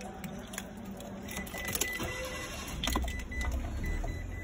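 Car engine running, heard from inside the cabin as a steady low rumble, with a few light clicks and a faint high broken beeping tone starting about a second in.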